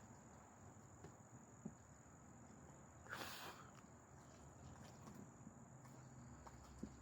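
Near silence: a faint steady high-pitched whine, a brief hiss about three seconds in, and a few faint ticks.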